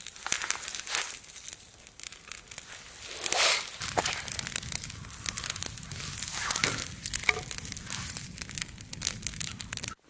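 Dry twigs and bark crackling and snapping at a freshly lit kindling fire, with irregular sharp crackles and tearing sounds throughout.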